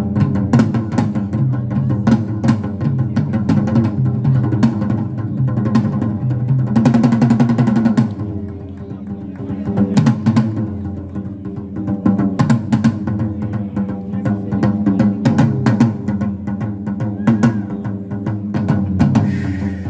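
Live drum solo on a small standing kit of snare and toms, struck with sticks in quick, busy patterns, over an electric bass guitar.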